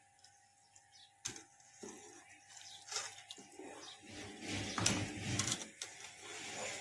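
Metal slotted spoon stirring hot milk in an aluminium pot, the milk swishing and the spoon scraping and clinking against the pot, while cornflour is mixed in to thicken it. A single knock about a second in; the stirring starts about two seconds in and is loudest near the middle.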